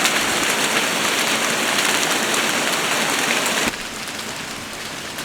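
Heavy downpour of rain falling steadily as a dense hiss. The sound drops abruptly to a noticeably quieter level about three and a half seconds in.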